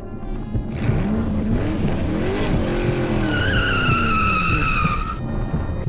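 A car engine revving up and down with its tyres squealing, starting about a second in. It cuts off abruptly near the end, with music underneath.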